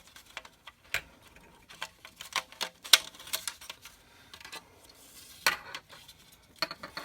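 Scattered sharp clicks and taps of hard plastic interior trim and switch pieces being handled and pressed into a 2015 Camaro's dash. The loudest click comes about three seconds in.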